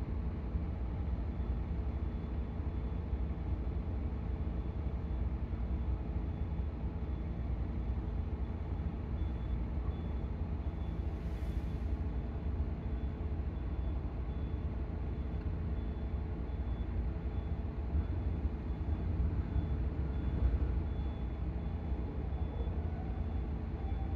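Heavy engine running steadily at a low, even pitch, with a short hiss of released air about halfway through.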